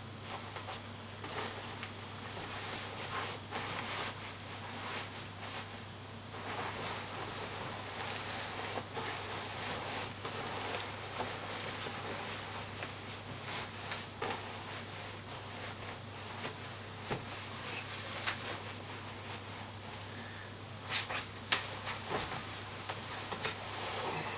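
Hotel bedding being handled: a duvet and sheets rustling as they are pulled off the beds and carried, with scattered light knocks and a couple of sharper knocks near the end, over a steady low hum.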